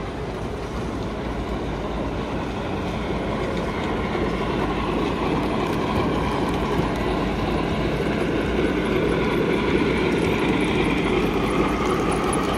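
O-gauge model train running on a three-rail layout, a steady rolling rumble that grows gradually louder over the first several seconds.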